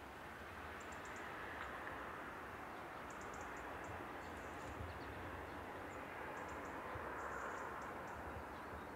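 Faint outdoor ambience: a steady rushing hiss over a low rumble, with small birds chirping in short, very high clusters several times.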